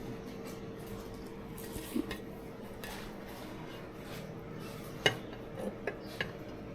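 Dishes clinking as they are handled and set down: a few separate knocks, one about two seconds in, the loudest about five seconds in, then three lighter ones quickly after.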